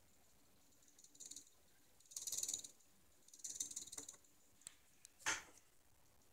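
Micro RC servo's small motor and plastic gear train whirring in three short bursts as it swings to follow a potentiometer being turned, followed by a few sharp clicks, the loudest near the end.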